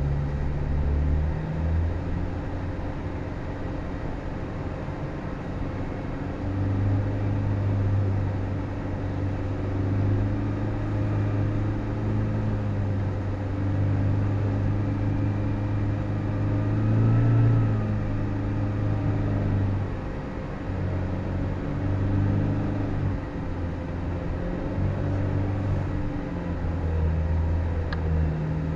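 Four-wheel-drive vehicle's engine running at low revs as it crawls over soft sand, its note rising and falling as the throttle is worked, with a brief peak about two-thirds of the way through.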